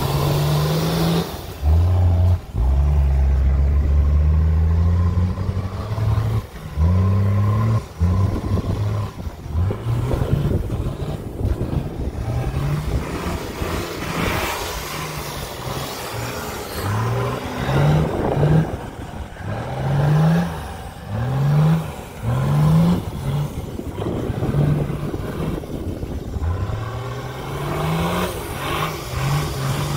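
Nissan Patrol Y60's engine revving hard as the 4x4 works through deep snow. There is a loud, held stretch early on, then many short revs that each rise in pitch, roughly one every second or two through the second half.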